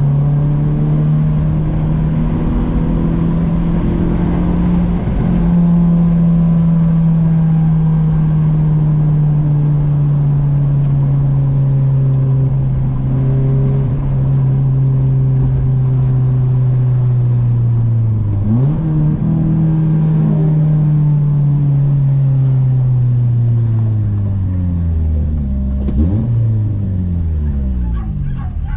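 Honda Accord wagon's four-cylinder engine running while driving. Its drone holds steady, then slowly falls as the revs drop, with quick rises in revs about two-thirds of the way through and again near the end.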